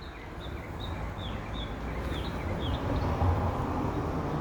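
Birds chirping in short high calls, repeated many times, over a low rumbling outdoor noise that slowly swells to a peak about three seconds in and then eases slightly.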